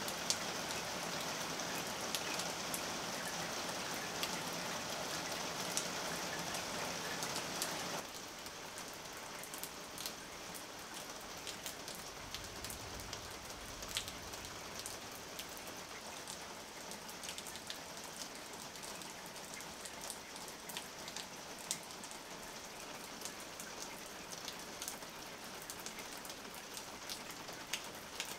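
Rain falling steadily, with individual drops ticking here and there. About eight seconds in it turns to a quieter, lighter rain.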